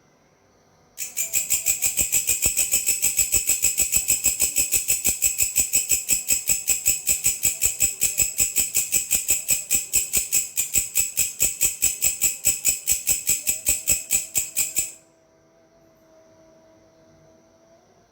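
A grasshopper calling: a high-pitched, even train of rasping pulses, about five a second, that starts about a second in, lasts around fourteen seconds and stops abruptly.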